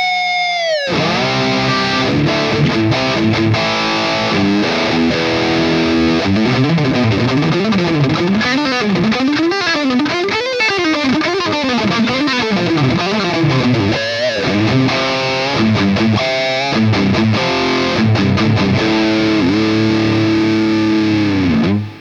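MUSI Virgo Fusion Telecaster-style electric guitar played through a distorted amp. It plays fast runs up and down the scale in the middle, with bent notes and vibrato, and slides down in pitch near the start and again at the very end as the playing stops.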